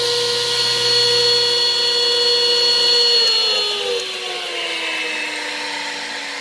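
1949 DeWalt GW-2 radial arm saw's 1 hp single-phase motor and 10-inch blade running with a steady whine, switched off about three seconds in: the low hum drops out and the whine falls slowly in pitch as the saw coasts down. The long spin-down is put down by the owner to its probably very old bearings.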